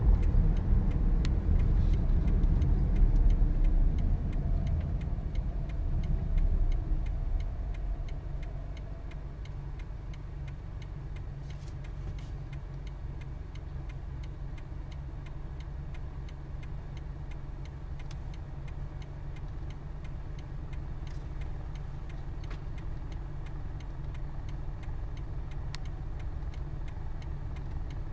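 Toyota Passo car running, with road and engine noise that is louder and rougher for the first several seconds, then settles to a quieter, steady low hum with faint ticking.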